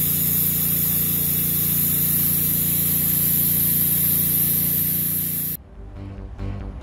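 Engine-driven pressure-washing machine used for roof moss removal, running steadily with a constant hiss of spray. It cuts off suddenly about five and a half seconds in.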